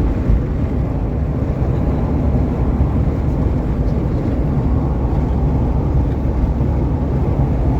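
Steady low rumbling noise, loud and even throughout, without distinct tones or separate events.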